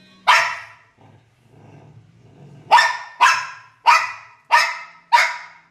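A large dog barking in six short, sharp barks: one just after the start, then five in quick succession about half a second apart. There is a low growl in the gaps between them.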